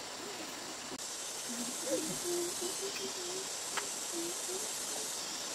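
A spoon and chopsticks working in a metal wok of fish stew as it is served into a bowl, with a single light clink about four seconds in, over a steady hiss.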